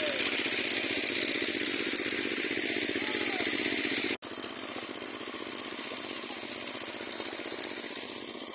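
A small engine running steadily with a rapid even pulse. It drops out abruptly for an instant about four seconds in, then carries on a little quieter.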